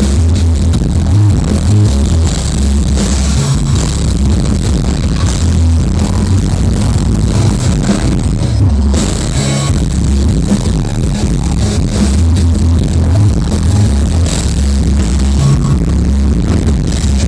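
Loud live electronic dance music played over a festival sound system, with a heavy, steady bass, poorly captured by the recording.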